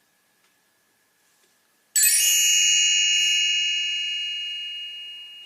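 A bright bell chime struck once about two seconds in, ringing with several high tones and slowly fading: the read-along's signal to turn the page.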